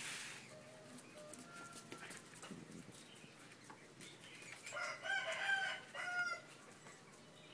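A rooster crowing once, a drawn-out call of about a second and a half a little past halfway through, with a short break near its end.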